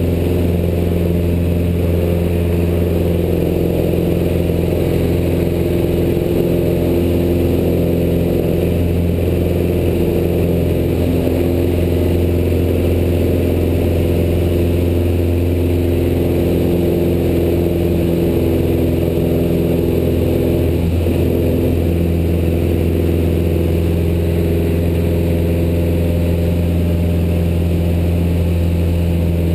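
Piston engine and propeller of a single-engine high-wing light aircraft droning steadily in flight, heard from inside the cockpit.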